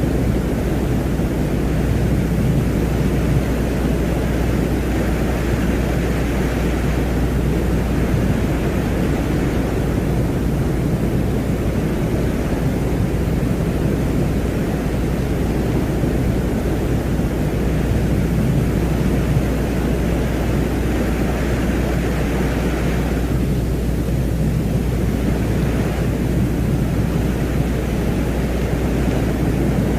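Space-ambience drone presented as the sound of Venus: a steady rushing noise over a deep low hum. About three-quarters of the way through, the upper hiss briefly thins out, then returns.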